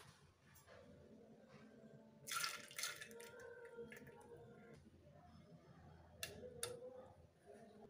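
Faint sounds of cooking ingredients going into an earthen clay pot holding a little water. About two seconds in, chopped amaranth stems are tipped in with a short burst of noise. Near the end, two light knocks are heard as two whole tomatoes are dropped in.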